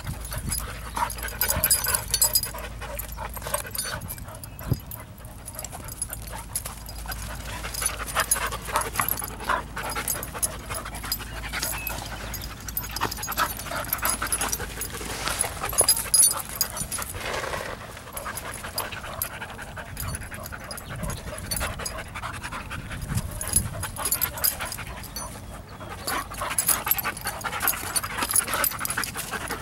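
Two dogs play-wrestling mouth to mouth, panting and making scuffling noises in uneven spurts.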